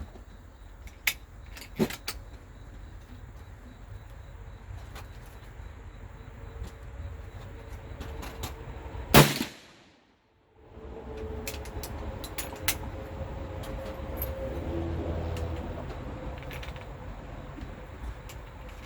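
A single gunshot about nine seconds in, by far the loudest sound, after which the sound cuts out for about half a second. Fainter sharp clicks and knocks come before and after it over a low steady rumble.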